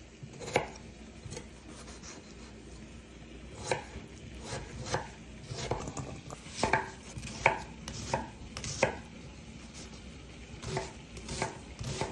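Kitchen knife chopping tomato on a wooden cutting board: irregular sharp knocks of the blade on the wood, with a few louder strikes in the middle.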